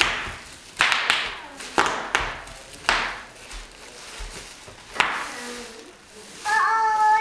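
Bubble wrap being popped: four sharp pops spaced about a second apart, each trailing off in a short crinkle, with a longer gap before the last. A child's voice comes in near the end.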